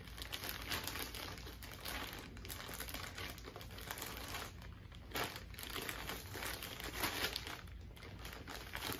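Plastic mailer bag crinkling and a denim jacket rustling as the jacket is folded and stuffed back into the bag, in irregular handling noises on and off.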